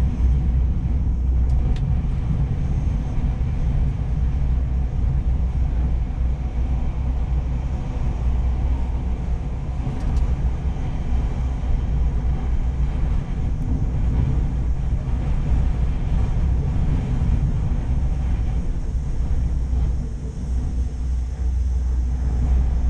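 Steady low rumble inside a moving cable car gondola cabin as it travels along the cable, easing slightly for a moment near the end.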